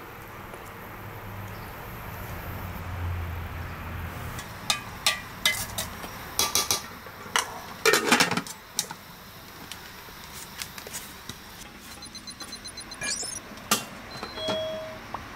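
Steady background noise, then from about four seconds in a run of sharp clinks and clatters of metal utensils and dishes, loudest as a short clatter about halfway through, with a few lighter clicks after.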